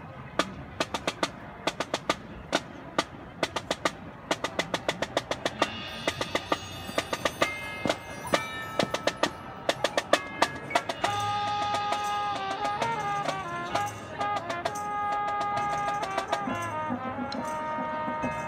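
High school marching band playing: a quick rhythm of sharp percussion clicks and drum strokes, with ringing pitched percussion notes joining about six seconds in. About eleven seconds in, held wind-band chords with some bending pitches come in and the music gets louder.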